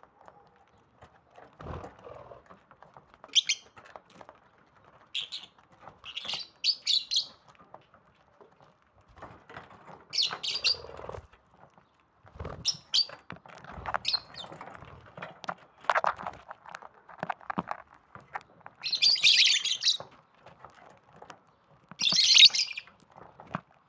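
Lovebirds giving short, sharp chirps in scattered bursts, the two longest and loudest calls coming near the end, with soft clicks and rustling between the calls.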